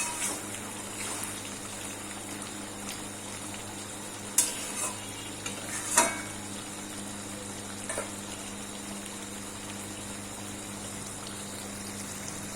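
Chicken kosha sizzling in a pan, with a few sharp clinks of a spoon against the pan, the loudest about six seconds in.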